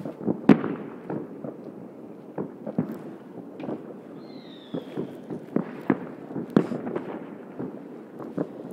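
Fireworks and firecrackers going off in an irregular run of pops and bangs, the loudest about half a second and six and a half seconds in. A brief falling whistle comes about four and a half seconds in.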